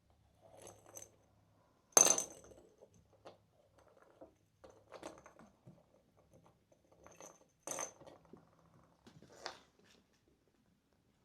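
Kittens knocking their toys about: a few sharp clinks with a brief metallic ring, the loudest about two seconds in and two more near the end, between soft scuffling.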